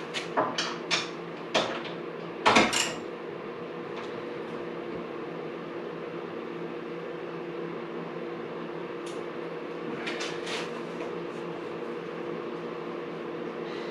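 Several sharp metallic clanks and knocks in the first few seconds and a couple more about ten seconds in, as a metal sculpture piece and its bolts are worked into an oak slab. A steady low hum runs underneath.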